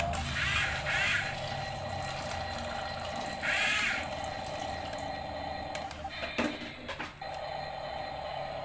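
Small electric motor of a toy excavator whirring steadily, with a few sharp plastic clicks about six to seven seconds in.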